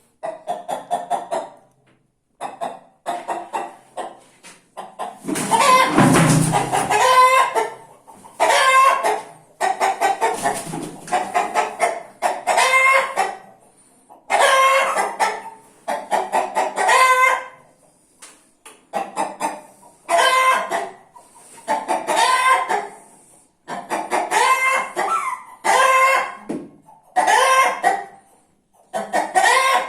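Chickens calling over and over: roosters crowing and hens clucking, a loud call about every two seconds.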